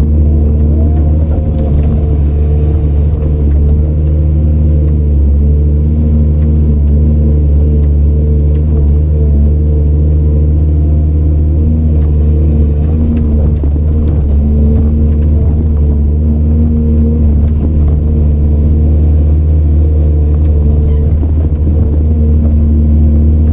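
Heavy diesel engine of earthmoving machinery running steadily under load, a deep continuous rumble with only slight rises and falls in pitch.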